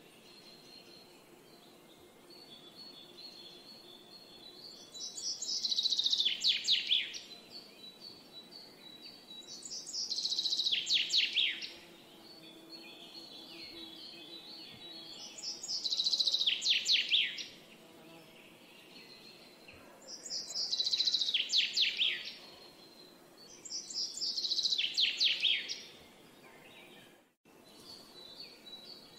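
A songbird repeating the same short song about every four to five seconds, five times: each song a quick run of high notes falling in pitch. Between songs a faint, thin, high steady whistle carries on over a soft outdoor background hiss.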